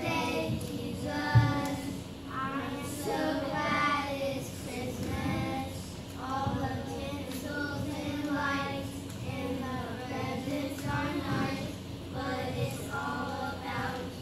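A group of young children singing together, with a single thump about a second and a half in.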